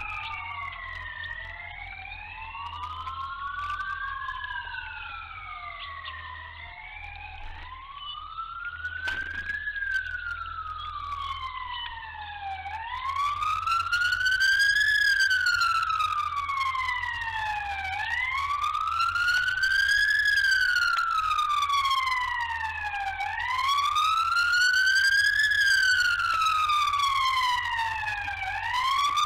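Sirens wailing in slow rising and falling sweeps, about one sweep every five seconds. At first two sirens overlap out of step; about halfway through one grows louder and carries on alone.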